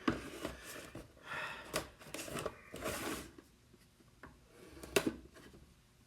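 Rustling and scraping of a cardboard toy box being handled, in several bursts over the first three seconds, then a sharp click about five seconds in.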